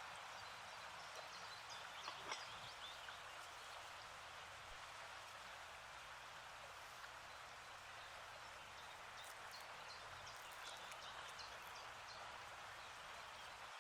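Faint, steady sizzle of samosas deep-frying in hot oil, with scattered small crackles and a couple of sharper pops about two seconds in.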